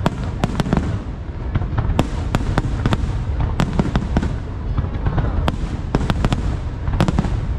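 Fireworks display: many sharp cracks and bangs of bursting aerial shells, several a second at irregular spacing, over a continuous low rumble.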